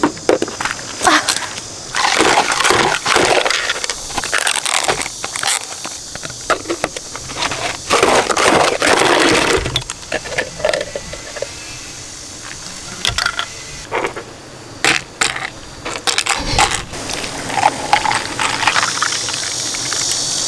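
Close handling of a plastic ice cup and a bottle on a table: plastic crinkling and crackling, with sharp clicks and taps as the cup's plastic lid is worked and the bottle and cup are set down. There are two longer crackling stretches, about two seconds in and again around eight seconds in.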